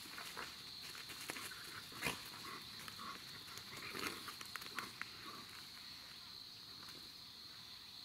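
Dogs play-wrestling: a cluster of short scuffling noises and dog sounds, loudest with a sharp click about two seconds in, dying away after about five seconds. A steady high insect drone runs underneath.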